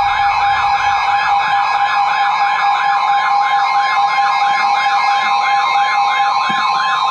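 Emergency Alert System alert tone for a severe thunderstorm warning: a loud steady two-note tone overlaid with a siren-like warble that sweeps up and down about three times a second.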